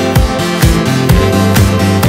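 Background music with a steady kick-drum beat, about two beats a second, over sustained held notes.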